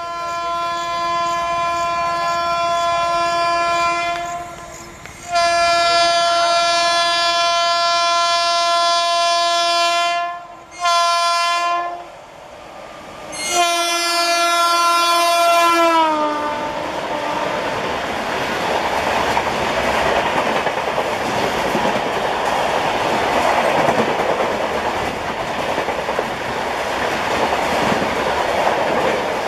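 A WAP-7 electric locomotive's horn sounds four times as the Shatabdi Express approaches: two long blasts, a short one, then a last blast whose pitch falls as the locomotive passes. The coaches then rush past at close to 100 km/h, wheels clattering over the rail joints.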